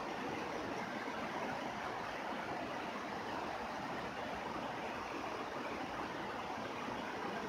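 Steady rain falling: an even hiss with no single drops standing out.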